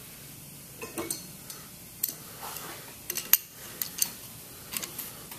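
Scattered light metallic clinks and taps as a hand wrench is handled against the stainless-steel fittings of a pump body, the sharpest a little past three seconds in.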